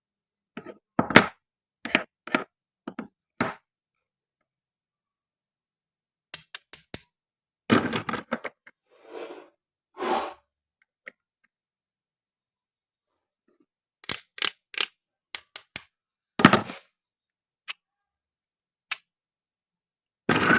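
Toy play-food pieces being cut and handled: sharp clicks and cracks in short clusters, with a longer scraping crunch near the middle.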